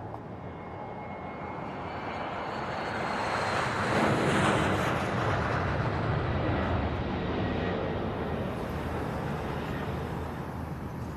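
A jet aircraft passing overhead: a rushing engine noise that builds to its loudest about four to five seconds in, then slowly fades away.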